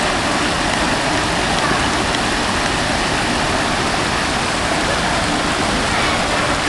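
Steady rush of water from a small river cascade pouring over rock into a pool.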